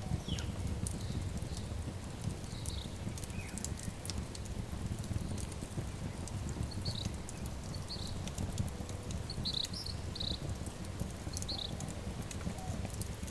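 Wood fire crackling, with many sharp pops and snaps over a low steady rumble. Short bird chirps come in at intervals, most of them in the second half.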